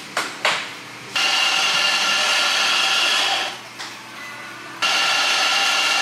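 Espresso grinder running in two bursts of a couple of seconds each, grinding coffee into a portafilter, after a couple of sharp knocks.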